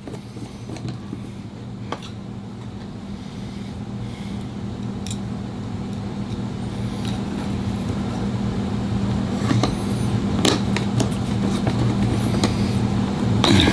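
A steady electric motor hum that slowly grows louder, with a few small sharp clicks over it as the clipper blade is put back together and its screws tightened.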